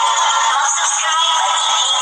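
Outro music with a processed singing voice, thin-sounding with no bass.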